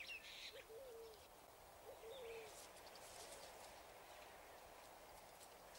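Faint bird calls: a short low note that rises and falls, heard three times, with a few higher chirps, over a faint hiss.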